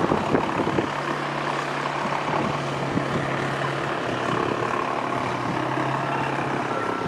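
A motor running steadily, a low, even hum over a noisy outdoor background.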